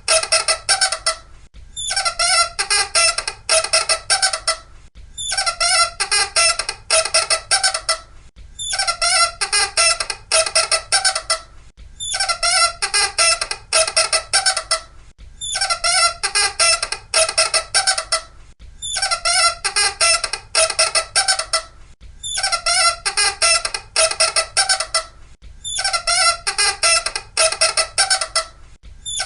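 Loud, high-pitched squeaking in bursts of about two and a half seconds, each made of rapid stuttering squeaks. The same burst repeats about every three and a half seconds, some nine times over.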